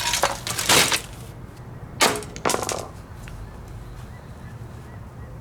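Plastic of a smashed box fan clattering and cracking. There is a quick cluster of knocks in the first second, then two more about two and two and a half seconds in.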